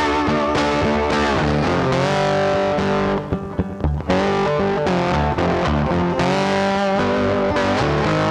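Background music led by a guitar, with sustained and sliding notes. It thins out briefly about three seconds in.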